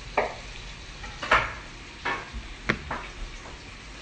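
Several sharp knocks and clatters of kitchen utensils and cookware, the loudest about a second in, over the steady sizzle of cubed potatoes frying in a pan on a gas burner.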